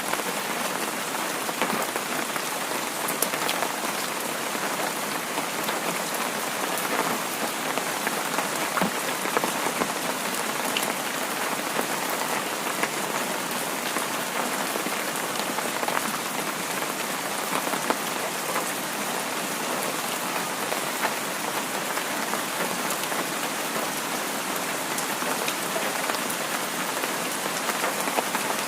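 Heavy rain falling steadily: a dense, even hiss with many small drop ticks scattered through it.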